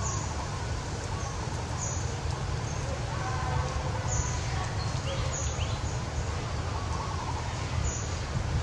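Outdoor ambience: a steady low rumble with faint, wavering calls over it.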